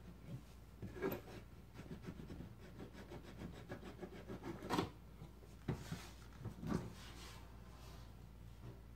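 An old metal case being unlatched and opened by hand: a latch clicks, metal scrapes and rubs, then a sharper click and a few knocks as the lid comes up.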